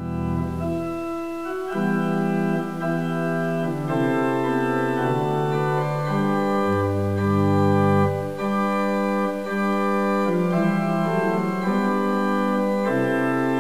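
Organ music playing slow, held chords that change every second or so over a low bass line.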